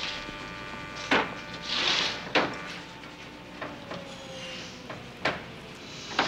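A few sharp knocks of hard objects being handled, the first two with a short hiss between them and the last two further apart. Lighter clicks fall in between.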